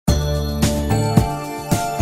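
Background music: a bright tune of struck, ringing notes over a bass line, with a new chord about every half second.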